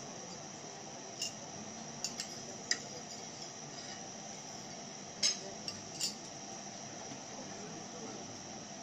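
Spoon and fork clinking and scraping in a copper pan over a tableside burner while crêpes are worked in their sauce: several sharp metallic clinks, the loudest about five seconds in, over a steady high-pitched hiss.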